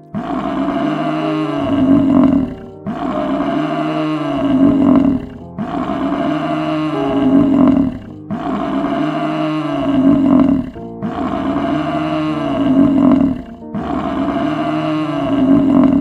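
Water buffalo bellowing: one long call that rises and falls in pitch, repeated six times at even intervals of about two and a half seconds.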